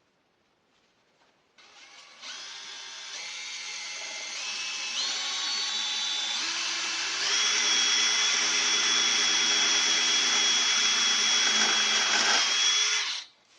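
Power drill boring a pilot hole into the metal of a safe door, lubricated with cutting oil. The motor's whine starts about a second and a half in, steps up in pitch and loudness a few times as it speeds up, and cuts off shortly before the end.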